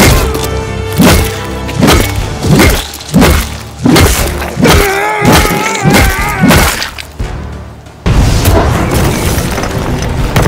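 Dramatic music with a run of heavy punch impacts, one about every two-thirds of a second. A man yells partway through. From about eight seconds in, a dense, steady rushing wash takes over.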